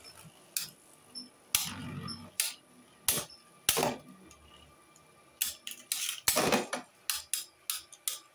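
Two Beyblade spinning tops clashing in a clear plastic stadium: an irregular string of sharp plastic clacks as they strike each other and the stadium wall, with a longer rattle about two seconds in and a quick cluster of hits past the middle.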